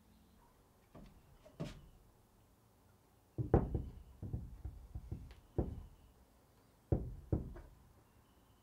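Knocks and clunks of a bus wing mirror's metal arm and pivot being turned and adjusted on its wall mount: two light knocks about a second in, a close run of heavier knocks from about three and a half seconds, and two more near the end.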